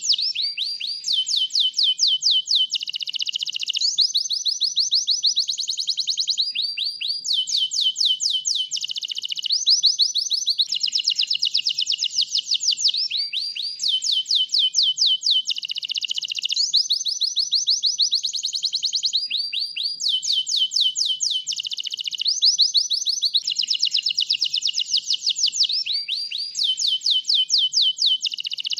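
White domestic canary singing without a break: fast trills of rapid repeated high notes, switching to a new trill every second or two.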